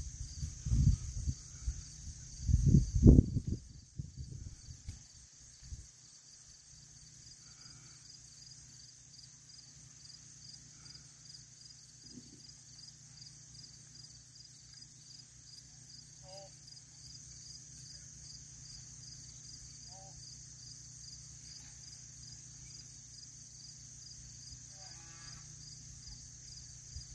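Insects chirping steadily in a rapid, even pulse through the summer woods. A few loud low thumps and rumbles come in the first few seconds.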